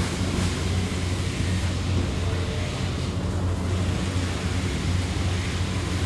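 A steady low mechanical hum under a constant rushing noise.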